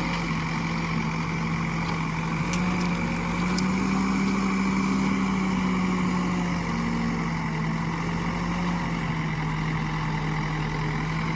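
Heavy-machinery diesel engine running steadily, speeding up a little for a few seconds in the middle and then settling back, with a few faint clicks.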